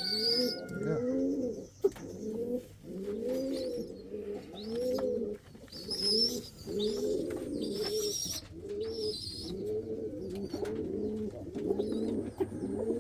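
Domestic pigeons in a loft cooing continuously, the low rolling coos repeating every half second or so and overlapping one another, with a few short higher chirps in between.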